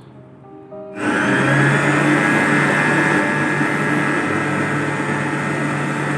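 Electric stand mixer switched on about a second in: the motor whines up to speed, then runs steadily and loudly as the balloon whisk beats flour into cake batter in a steel bowl.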